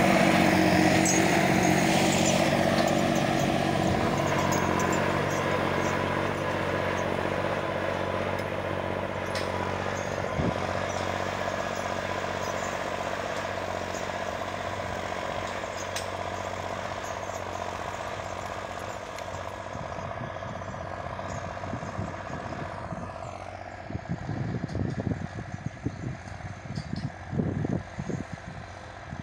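Diesel engine of a new Valtra A.95 tractor running steadily under load while pulling a disc harrow through the soil, being run in, and slowly fading as it moves away. Near the end come uneven low rumbling bursts.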